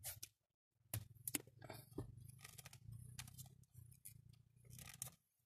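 Faint handling noises: electrical tape being wrapped around a wire splice, with small clicks and scratchy rustles, over a faint low hum.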